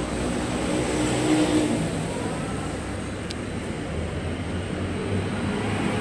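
Light-rail train running, a steady low rumble with a brief humming tone about a second in.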